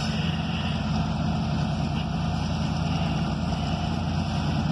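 Diesel locomotive engine running with a steady low drone as the train approaches.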